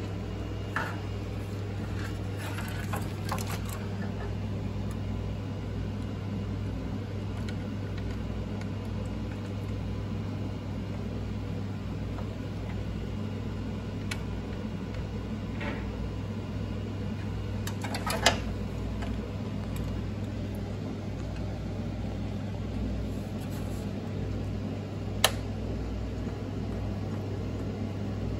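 Steady low hum under a few short clicks and taps of a CPU liquid cooler's pump block and its mounting hardware being handled and seated on a motherboard. The two sharpest clicks come a little past halfway and near the end.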